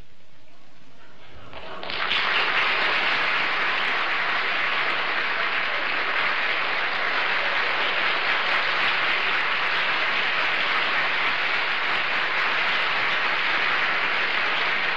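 Studio audience applauding, starting about two seconds in and holding steady.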